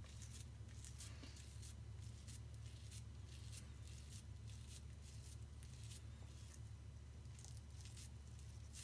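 Faint wet squishing and soft irregular clicks of a water-dipped cucumber end being twisted into a ball of bulgur dough, hollowing it into an içli köfte shell, over a low steady hum.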